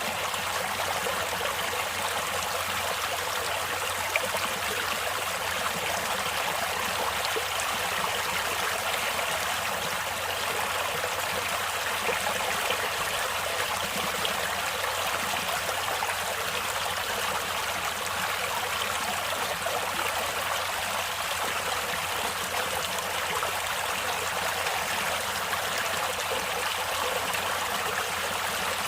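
Stream water flowing steadily over rocks, a continuous rushing and trickling.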